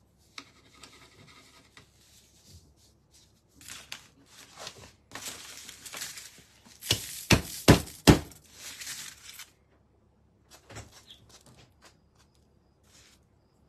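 Handling noises on a painting table: rustling, with a few sharp knocks about seven to eight seconds in, as the round painted board is picked up and moved.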